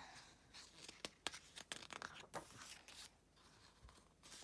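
Faint rustling and a few soft clicks of a glossy photobook's paper pages being handled and turned over.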